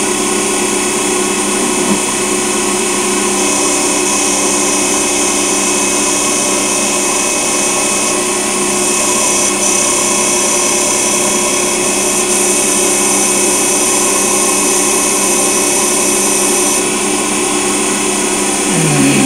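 Hercus PC200 CNC lathe with its spindle running at about 2000 RPM, a steady machine whine, while a turning tool cuts aluminium, adding a high hiss that eases off shortly before the end. A short falling tone comes near the end.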